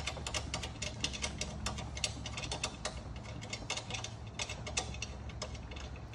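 Rapid, irregular light clicks and taps, several a second, as a diamond-plate floor plate is worked against a golf cart's frame to seat it, over a low steady hum.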